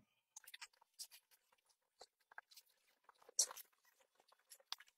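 Quiet room with faint, scattered small clicks and ticks, and one louder short noise about three and a half seconds in.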